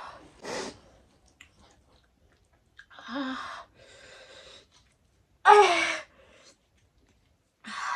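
A woman's wordless sounds of distress from the burn of an extremely hot chili chip: heavy breaths, a short moan, and about halfway through a louder groan that falls in pitch, then another hard breath near the end.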